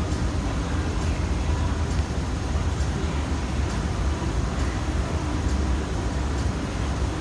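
Steady low rumble and hiss of an underground metro platform behind closed platform screen doors, with no train at the platform.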